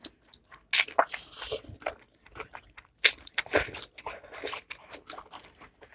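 Close-up eating sounds: chewing and biting with irregular wet clicks and smacks, and two longer hissy bursts, about a second in and about three seconds in.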